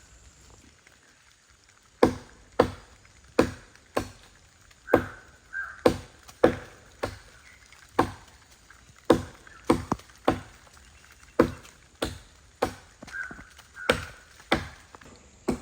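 Repeated hand chops into wood, most likely an axe or similar blade. About twenty sharp strikes start about two seconds in and come roughly one to two a second, unevenly spaced.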